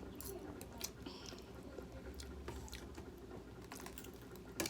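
Faint close-up chewing with scattered small clicks.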